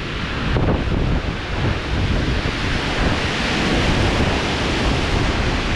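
Strong wind blowing hard across the microphone: a loud, steady rushing noise with gusty buffeting.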